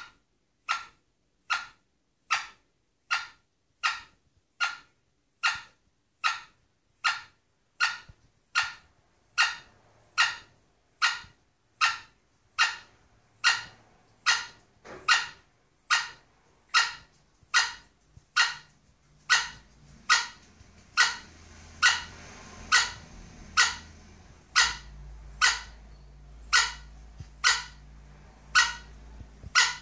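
Sebright bantam hen calling over and over in a steady rhythm, about four short calls every three seconds, while settled on her nest: the repetitive pre-laying call of a hen about to lay an egg. A faint low hum sets in about two-thirds of the way through.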